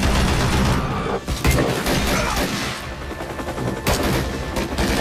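Loud movie battle soundtrack: bursts of automatic gunfire and sharp shots over a continuous deep rumble.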